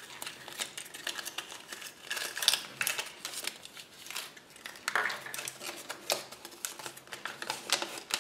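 Paper leaflet and small plastic wrapper of a Kinder Surprise toy rustling and crinkling as they are unrolled and opened, with light clicks of small plastic parts being handled. The rustles and clicks come irregularly, the loudest about five seconds in.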